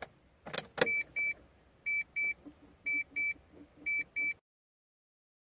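Two sharp clicks as the ignition is switched on, then the Mitsubishi Colt's dashboard warning chime beeping in pairs: four double beeps about a second apart, before the sound cuts off.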